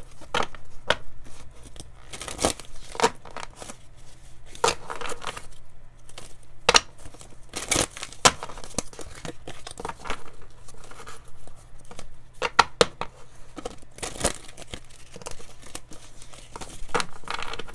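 A deck of oracle cards being shuffled by hand: steady papery rustling of the cards sliding against each other, with irregular sharper snaps.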